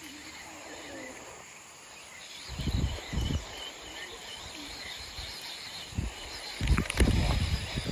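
Riverside forest ambience: faint insect and bird chirping. Low rumbling bumps on the microphone come about two and a half seconds in and again from about six seconds.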